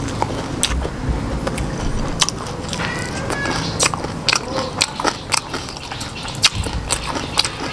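A person chewing and crunching food close to the microphone, with many sharp, irregular crisp bites and mouth clicks. The food is Khmer rice noodles with raw green vegetables.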